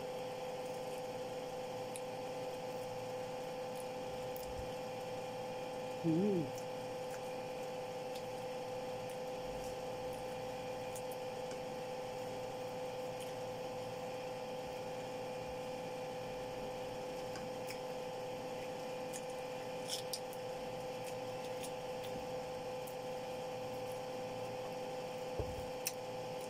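Steady electrical hum, with one brief vocal sound about six seconds in and a couple of faint clicks later on.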